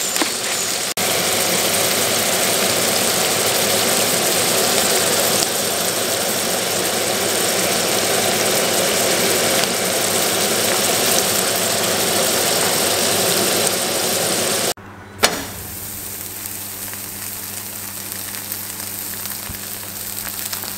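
Cubed lamb frying with lemon pieces in tail fat in a pan, a loud steady sizzle. After a cut about 15 seconds in, a quieter steady low hum with lighter sizzling as a bone-in beef steak cooks on a grill.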